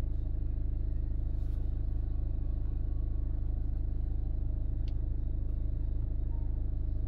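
Steady low rumble of a car engine idling, with an even, slightly pulsing hum.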